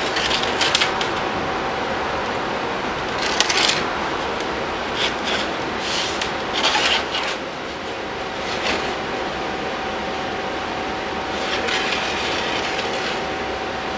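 A pencil scratching in short, irregular strokes as it traces around an old wooden plank laid on a new cedar board, with the plank rubbing and shifting on the board. Under it runs a steady shop hum with a thin, high steady whine.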